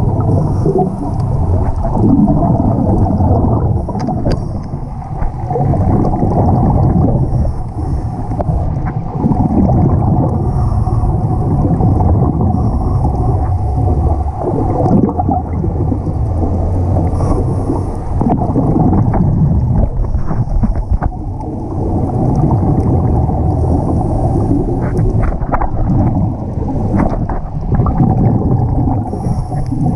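Muffled underwater rumble as heard by a camera in a waterproof housing, with the hiss and gurgle of scuba regulator breaths and exhaled bubbles coming back every two to three seconds.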